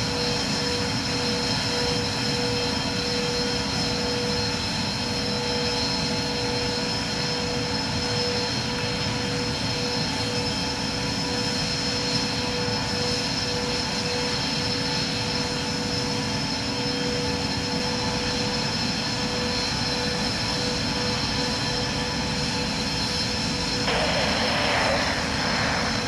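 Dassault Falcon 900EX's three Honeywell TFE731 turbofans running steadily at low power, a constant jet whine with a few steady tones, as the jet holds on the runway before its takeoff roll. A hiss joins near the end.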